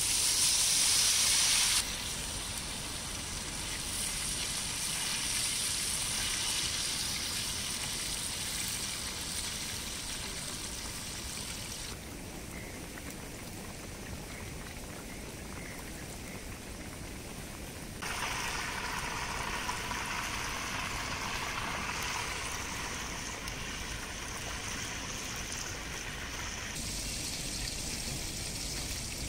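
Masala-battered fish and fish roe pieces deep-frying in hot oil in a large iron kadai. A loud burst of sizzling comes at the start as a piece is dropped into the oil, then steady sizzling and spattering that shifts in level a few times.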